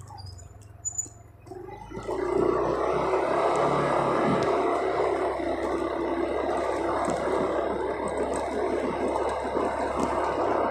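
Motorcycle engine running, quiet for about the first two seconds, then louder from about two seconds in as the bike rides along.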